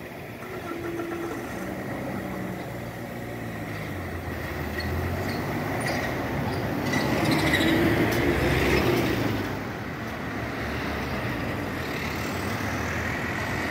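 Road traffic moving off once a railway level crossing opens: cars and a pickup truck drive over the crossing past the microphone. The engine and road noise build to a loudest pass about seven to nine and a half seconds in, then settle.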